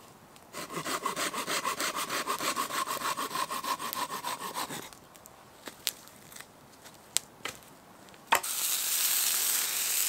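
Small hand saw cutting through a wooden branch in quick, even back-and-forth strokes for about four seconds. A few light clicks and a knock follow. Then, from about 8 seconds in, there is a steady sizzle of chicken wings frying in a skillet over campfire embers.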